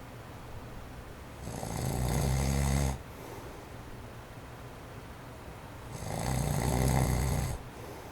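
Snoring of a man in his forties who has sleep apnea: two long snores about four and a half seconds apart, each swelling up and then cutting off sharply. Under them runs the faint, steady whoosh of an electric fan on its low setting.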